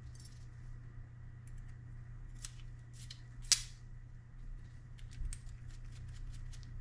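Light metallic clicks and ticks of a small steel measuring tool being handled and adjusted in gloved hands, with one sharper click about three and a half seconds in and a run of quick light ticks near the end. A steady low hum runs underneath.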